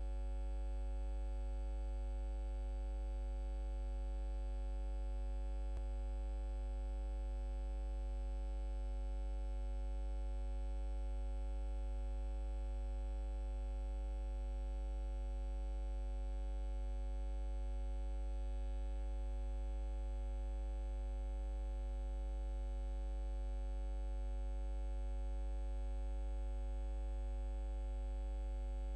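A steady electrical hum: a deep low drone with several fixed higher tones above it, holding the same pitch and level without change.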